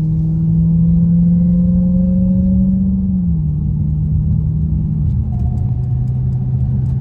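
Supercharged 6.2-litre Hemi V8 of a Dodge Hellcat fitted with a JLT Performance intake, heard from inside the cabin with the windows up, pulling in normal driving. Its note climbs a little, then drops in pitch twice, about three and five seconds in, as the car shifts up.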